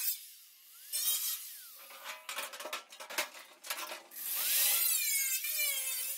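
Angle grinder cutting a steel car-body repair panel, its motor whine rising and falling in pitch as the disc bites and is eased off. In the middle the cutting stops for a run of clicks and knocks, then the grinder spins up and cuts again near the end.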